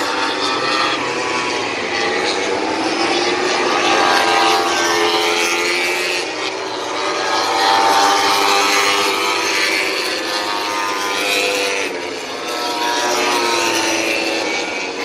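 Several MotoGP four-cylinder racing motorcycles passing at high revs, their engine notes overlapping and rising and falling in pitch with throttle and gear changes.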